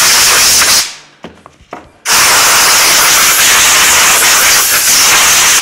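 Compressed-air blow gun hissing loudly as it blasts dust out of the grooves of a wooden trivet. There are two long blasts, with a short pause about a second in that holds a few faint knocks. The second blast cuts off suddenly near the end.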